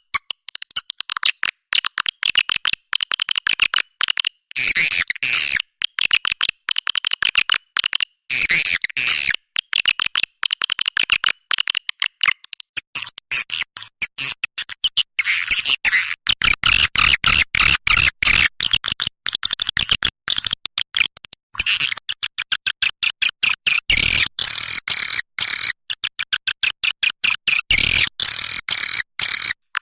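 Recorded swiftlet calls, a lure call of the kind played to draw swiftlets to a nesting house: rapid, dense twittering chirps, loud and high, chopped by frequent abrupt gaps of silence.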